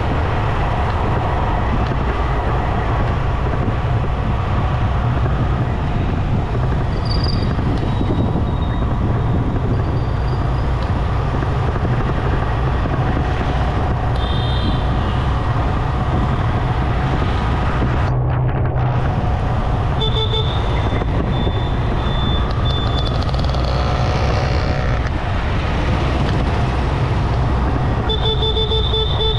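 Motorcycle engine running steadily through city traffic, with road noise. Vehicle horns toot several times, most clearly about two thirds of the way through and again near the end.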